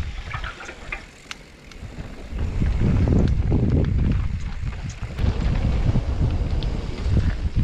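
Wind buffeting a helmet-mounted microphone on a mountain-bike descent, mixed with tyres rolling over dirt and gravel and scattered clicks and rattles from the bike. The rumble eases off about a second in and builds back up from about two and a half seconds.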